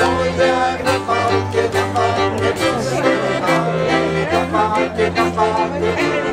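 Street band playing lively folk-style music: an accordion carries the tune and chords in a steady rhythm over long held low notes from a bowed double bass.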